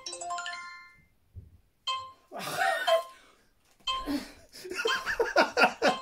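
Phone charades app playing a short rising chime of stepped electronic tones, the signal for a correct guess. A louder, busier stretch of voice-like sound follows from about four seconds in.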